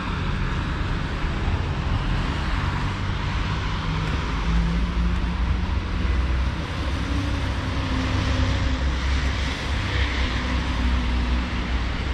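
Steady street traffic on wet roads: tyres hissing over the wet surface over a continuous low rumble, with a faint engine hum.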